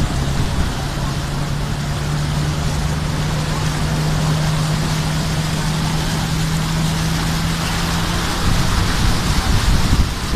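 A minibus driving through deep floodwater: its wheels churn up a constant rushing splash of water under a steady engine hum.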